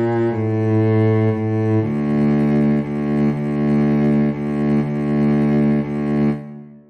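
Cello, played back from notation software, playing a slow low line: a few held notes, then a low note repeated in long-short pairs that fades away about six and a half seconds in.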